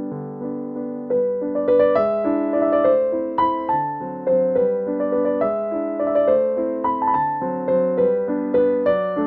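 Background piano music: a calm melody of struck notes, about two a second, each fading away, over lower held notes.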